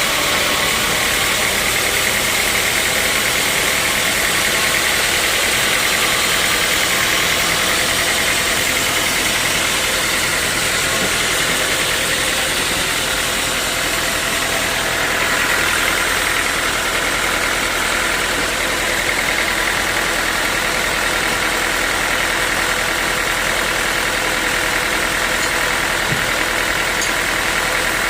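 Sawmill machinery running steadily: a continuous loud machine drone and hiss, with a higher whine that shifts a little about halfway through.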